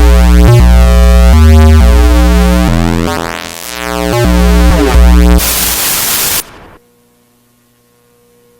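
Loud, distorted synthesized tones stepping through changing pitches every fraction of a second, with a pitch sweep near the middle. About five and a half seconds in they give way to a burst of harsh static, which cuts off a second later to a faint mains hum as the broadcast signal goes dead.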